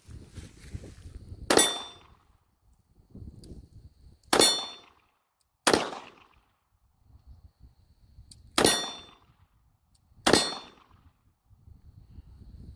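Five single shots from a .357 Magnum revolver (a Rossi), fired one at a time at uneven intervals. Each is a sharp crack with a brief metallic ringing after it.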